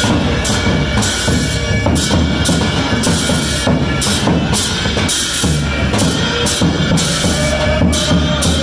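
Music with a steady drum beat, about two beats a second, over a held melody line.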